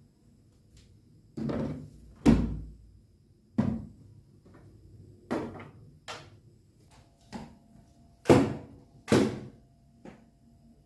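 A series of about nine irregular knocks and thuds, like household objects being handled and set down or doors and cupboards being closed, the loudest about two seconds in and near the end.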